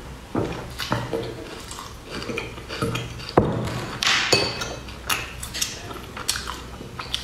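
Close-miked eating of a crunchy puffed-rice and peanut bar: irregular sharp crunches and clicks, with a ceramic bowl knocking on the wooden board. The loudest knock comes about three and a half seconds in.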